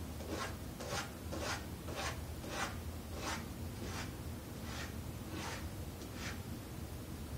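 A cat scratching its claws against a closed wooden door: about ten short scratching strokes, a little under two a second, as it tries to get the door opened.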